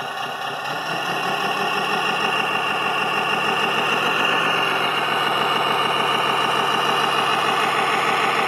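Engine idling steadily with a fast, even beat, growing a little louder over the first few seconds.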